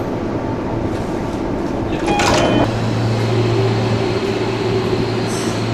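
A JR Kyushu 305 series electric train standing at the platform, with a steady electrical hum. About two seconds in a short clatter with brief tones comes as the platform doors, worked by hand by the conductor, close, and the hum grows louder afterwards.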